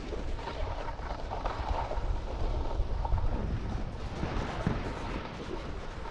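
Wind buffeting the microphone in a heavy, fluttering rumble from moving at speed, over the steady hiss and scrape of skis sliding on hard-packed snow.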